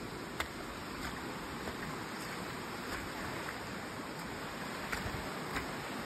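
Footsteps on a dry leaf-littered dirt trail, with a few sharp crackles underfoot, over a steady rushing noise.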